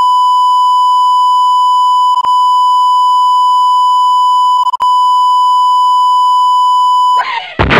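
A loud, continuous electronic beep at one steady pitch, broken briefly twice. Near the end it gives way suddenly to a loud rush of noise.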